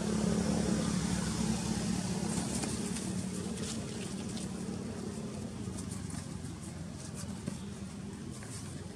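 A steady low engine hum, loudest at the start and slowly fading, with a few light clicks a few seconds in.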